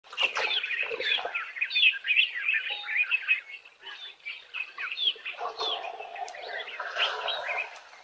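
Several small birds chirping and whistling at once, a busy overlapping chorus of quick high notes. A rougher, lower sound joins in during the last two or three seconds.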